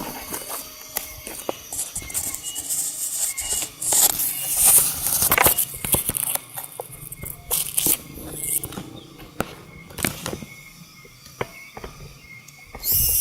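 Leaves and twigs of a coffee bush rustling and crackling as branches are pushed aside, with scattered sharp clicks and louder rustles around four to five seconds in.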